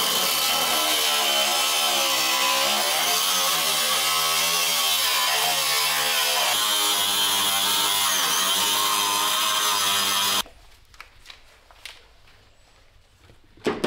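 Angle grinder with a thin cut-off disc slicing through the rusted steel floor pan of a Triumph TR3, its motor pitch wavering as the disc loads in the cut. It stops suddenly about ten seconds in, leaving a few faint handling clicks.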